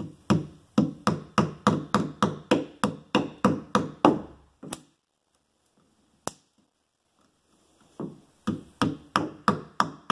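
Small hammer tapping at a door hinge's stripped screw hole in quick, even strikes, about three a second, for the first four seconds or so. After a pause with a single sharp tap, a second run of strikes starts near the end.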